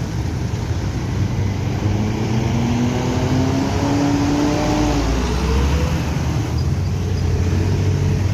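Coach bus engine running and pulling away, its pitch rising steadily for a couple of seconds and then falling away about halfway through, over a continuous low rumble.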